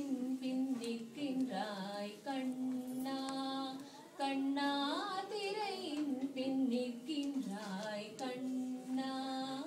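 A child and a woman singing a Carnatic song together: long held notes with gliding, ornamented pitch bends.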